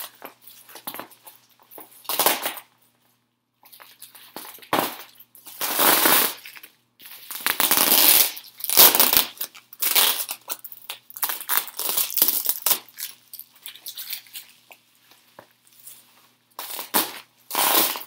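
Loud crinkling of packaging wrap being pulled off a parcel by hand, in irregular bursts with a brief pause about three seconds in.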